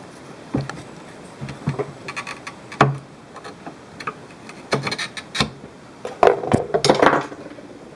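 Irregular knocks, taps and clicks from glass and tools being handled while a glass pane is cut, with a busier run of clatter about six to seven seconds in.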